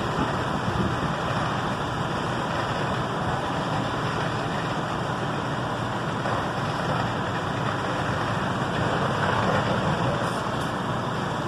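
Steady heavy engine rumble mixed with the rush of water from a fire hose stream spraying onto a burning building.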